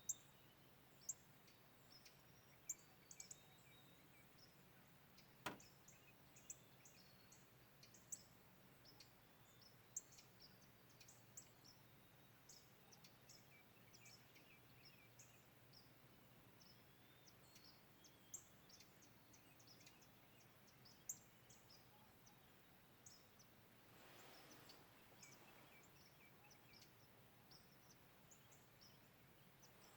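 Faint birdsong: many short, high chirps scattered throughout, over a low steady hum. There is one sharp click about five seconds in, and a brief rush of noise about four-fifths of the way through.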